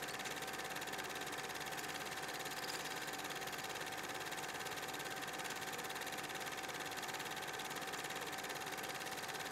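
Steady background hum and hiss with a constant faint whine running through it; nothing starts, stops or changes.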